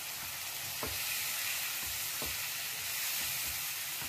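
Onion-tomato masala sizzling in a nonstick kadhai with a little water added so the spices fry through. A spatula stirs it, knocking and scraping against the pan a few times.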